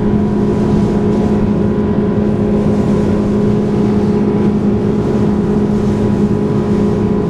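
Yamaha outboard motor running at a steady speed with the boat under way, a constant drone that holds one pitch, over the rush of wind and water.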